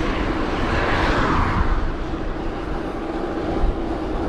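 Wind rumbling on a GoPro's microphone while cycling, a steady rough noise with a higher hiss that eases off about two seconds in.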